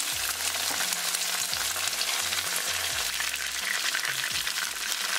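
Vegetable oil sizzling steadily in a hot wok, with the last pieces of stir-fried asparagus still frying in it.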